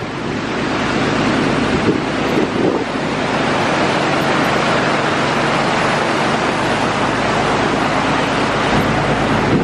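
Lifted truck driving through deep floodwater: its engine running under a steady rush of water washing around the tyres, with wind on the microphone.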